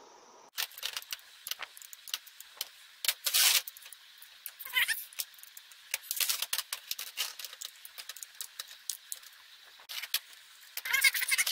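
Cast-aluminium automatic transmission valve body handled and turned over on a corrugated metal workbench: scattered clinks, knocks and rattles of metal on metal, with a few short scrapes.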